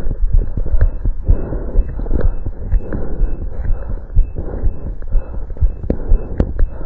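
A person's heart beating, picked up through a stethoscope during exercise: a quick run of dull low thumps over a steady rushing noise.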